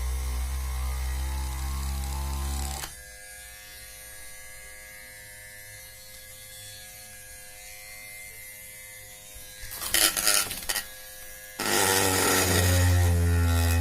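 Small DC motor of a homemade mini drill running with a steady buzz, cutting out about three seconds in. After a quieter stretch there is a brief noisy rattle near ten seconds, and the motor starts buzzing again about two seconds later.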